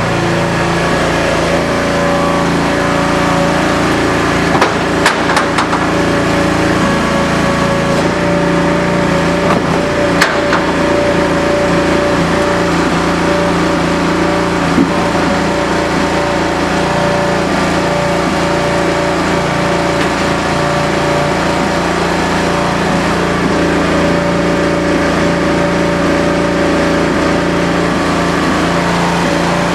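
16-hp V-twin Briggs & Stratton gas engine running steadily, driving the tire baler's hydraulic pump. A few short knocks are heard about 5, 10 and 15 seconds in.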